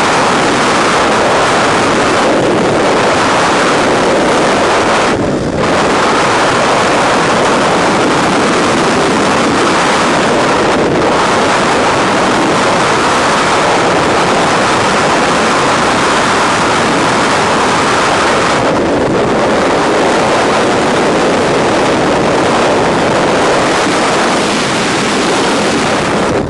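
Freefall wind rushing loudly and steadily over the camera microphone during a skydive. The rush thins briefly about five seconds in and again about eleven seconds in.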